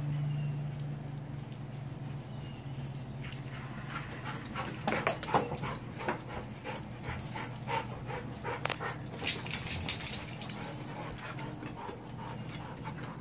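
A dog whimpering and giving short yips in a rapid, irregular series from about four seconds in, over a steady low hum.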